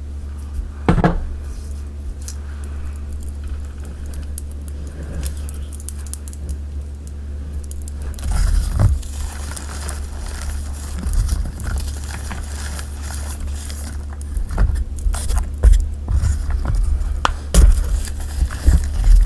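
Dyed gym chalk and cornstarch being squeezed and crumbled by hand: dry crunching and crackling, sparse at first and denser from about eight seconds in, over a steady low hum.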